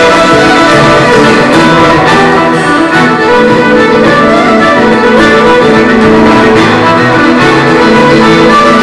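Live band playing an instrumental passage, a fiddle leading over guitar accompaniment.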